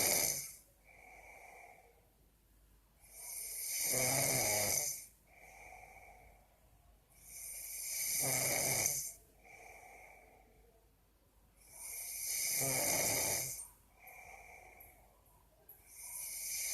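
Someone snoring in sleep: a loud, rasping snore about every four seconds, each lasting about a second and a half, with a much softer breath in between.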